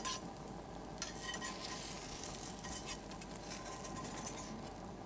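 Omelette frying in butter in an omelette pan over a gas flame: a steady sizzle, with the metal spatula scraping and tapping the pan now and then as the folded edges are pressed together to seal.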